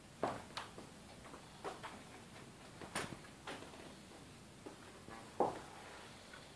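Scattered light knocks and clicks of a pen tray being handled and slid onto a shelf of a pen display stand, the loudest knock about five seconds in.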